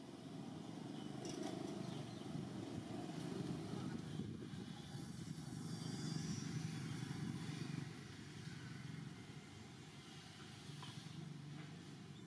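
Low engine rumble of a distant motor vehicle, louder through the middle and easing off about eight seconds in.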